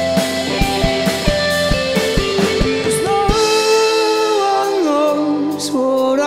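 Live rock band playing electric guitars, bass and drum kit with a steady beat. About three seconds in the drums and low end drop out, leaving held, slightly bending notes ringing over the top.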